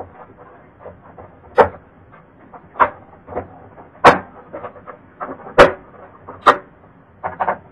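Sharp plastic clicks and knocks, about seven in all with the loudest two near the middle, as the Dell Inspiron N5010 laptop's plastic bottom cover panel is pressed into place and its screws are driven back in with a screwdriver.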